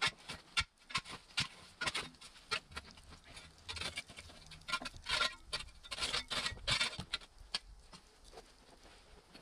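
Shovel digging and scraping in stony soil, with irregular crunches and clinks of stones against the blade. The strokes die down near the end.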